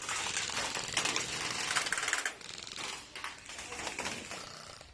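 Airsoft guns firing in rapid full-auto bursts: a fast clicking rattle that eases off a little after two seconds in.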